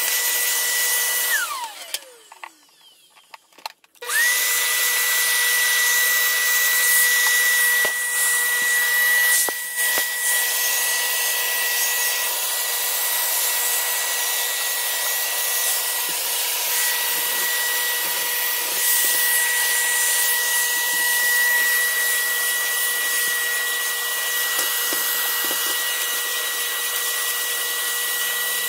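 Vacuum cleaner running with a steady high motor whine while its narrow nozzle sucks dust off plastic panels and grilles. About a second in the motor is switched off and winds down. About four seconds in it starts again, the whine rising quickly back up to speed.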